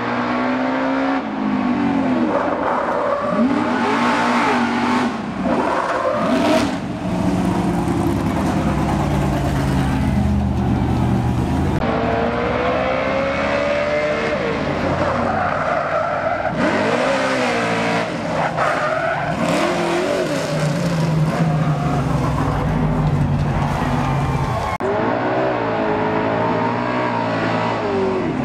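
Engine of a fire department drill team racing car, carrying a crew of firefighters, running and revving, its pitch rising and falling several times.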